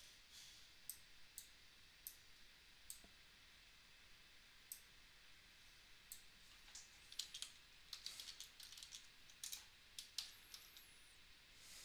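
Faint clicks spaced a second or so apart, then a quick run of computer-keyboard keystrokes from about six seconds in as a user name is typed at a terminal login prompt.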